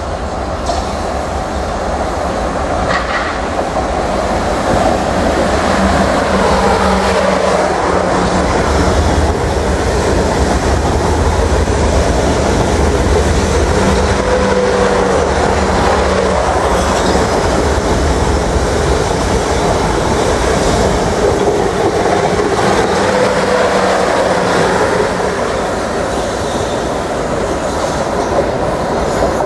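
Class 444 Desiro electric multiple units running through the station, a steady rolling rumble with wheels clattering over pointwork. A hum from the traction equipment comes and goes, and brief high squeals come from the wheels or brakes around the middle and again about three quarters of the way in.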